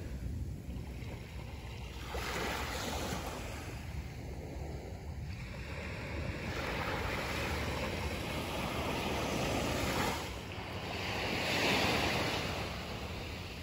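Small surf breaking and washing up a sandy beach, swelling and falling back in several long surges, the loudest near the end. Wind buffets the microphone with a steady low rumble underneath.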